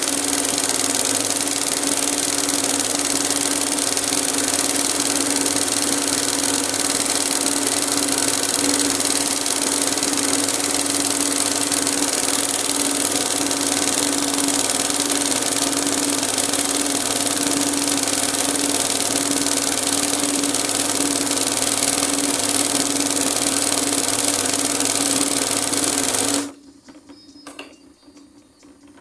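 Embroidery machine stitching at speed: a loud, steady, rapid needle chatter over a constant motor hum. It cuts off suddenly a few seconds before the end.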